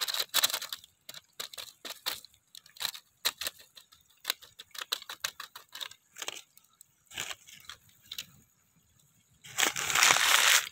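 Plastic masala packet crinkling in the hands as spice powder is shaken and tapped out of it: a string of short crackles, then a longer, louder rustle of plastic near the end.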